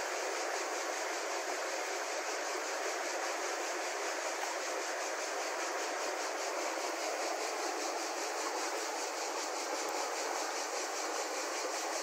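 Fast-flowing river water rushing steadily past the rocks of the bank, an even hiss that keeps a constant level.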